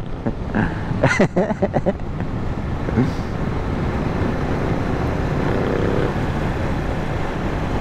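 Motorcycle riding along at a steady cruising speed: a continuous mix of engine, wind and tyre noise heard from the rider's seat.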